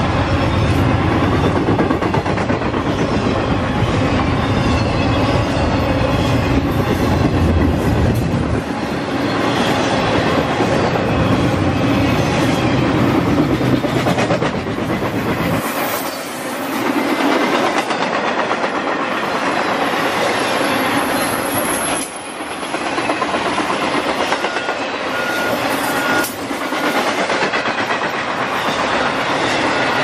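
Intermodal freight train rolling past close by, a steady rush of wheel noise with the cars' wheels clacking over the rail joints. A deep rumble underneath drops away sharply about halfway through.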